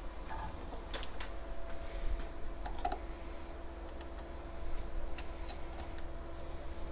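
Scattered small clicks and taps of a screwdriver and wire ends working the screw-terminal blocks on an Adams motor's circuit board as the coil wires are changed over to reverse the polarity. A faint steady hum runs underneath.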